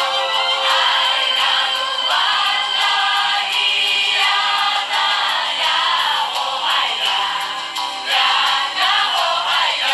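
Music with singing voices, thin with little bass, playing steadily.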